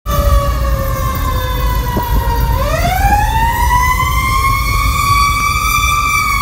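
Fire engine siren wailing, heard from inside the cab of the moving fire engine: its pitch sinks slowly, climbs again about two and a half seconds in, and begins to sink near the end. The truck's engine rumbles low underneath.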